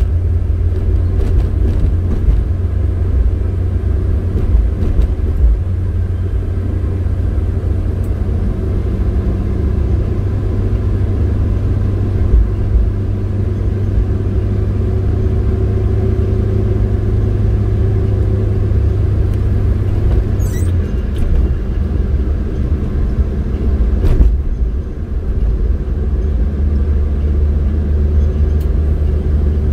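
Steady low rumble of a car on the move, engine and road noise, with a single short knock about two-thirds of the way through.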